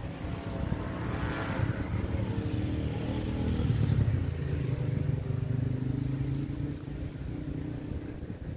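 An engine running with a steady low hum, growing louder over the first few seconds and then holding steady.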